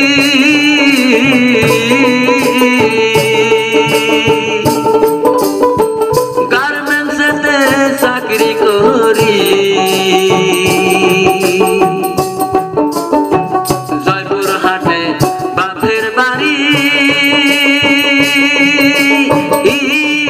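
Live Bangladeshi baul folk music: a male voice sings with wavering vibrato over a dhol drum, a small stringed lute and rattling hand percussion.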